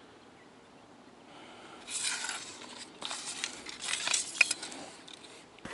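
A 6-metre pole rod being handled: dry scraping and rubbing with a few light clicks and knocks, starting about a second and a half in.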